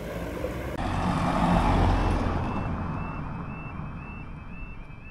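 Level crossing warning alarm sounding a short rising tone about three times a second, over the rumble of a passing vehicle that swells about two seconds in and then fades away.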